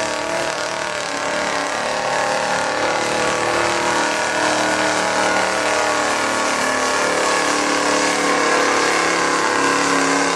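Chevrolet Silverado pickup's Duramax diesel engine held at high revs under full load as it drags a weight sled, with a steady pitch that wavers only slightly.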